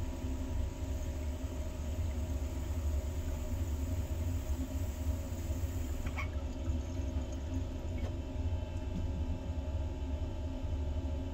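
Long draw through a glass water pipe with percolators, a faint steady hiss of pulled air over a constant low rumble. About six seconds in the hiss stops and there is a single sharp click as the metal vaporizer head is lifted off the pipe's glass joint to clear it.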